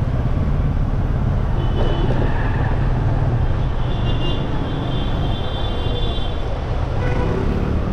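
Steady low rumble of riding through city street traffic, with thin high-pitched tones for a couple of seconds near the middle.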